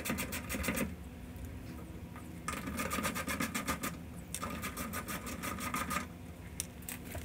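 Hand ratchet clicking rapidly in three runs as it backs off the small 8 mm nuts holding a fuel level sending unit onto the fuel pump.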